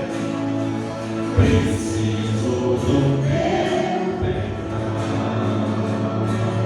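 Choir singing a gospel worship song, with held notes and chords running throughout.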